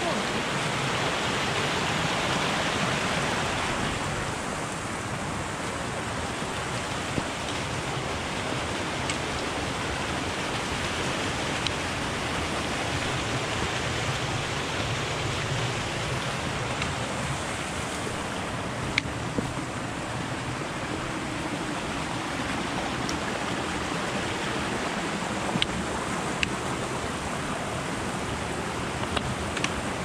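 Mountain stream rushing and splashing over rocks in a steady wash of water noise, a little louder in the first few seconds. A few single sharp clicks are scattered through it.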